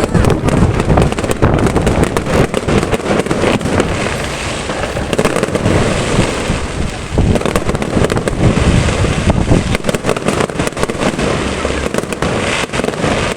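New Year fireworks display going off: a dense, continuous run of bangs and crackling with no break.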